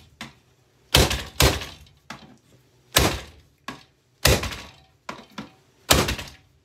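Repeated heavy blows on a hand-held Bissell vacuum cleaner as it is smashed apart. There are five hard strikes about a second or so apart, each with a short crackling decay, and lighter knocks between them.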